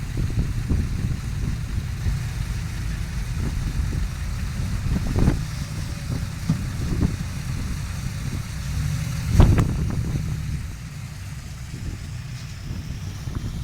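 Tracked excavator's diesel engine running steadily, broken by several sharp knocks and clanks. The loudest knock comes a little past halfway.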